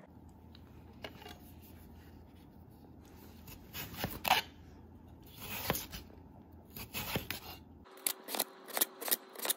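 Crinkle-cut knife slicing through a raw peeled potato on a wooden cutting board. There are a few slow cuts, each ending with the blade knocking the board, then quicker cuts about three a second near the end.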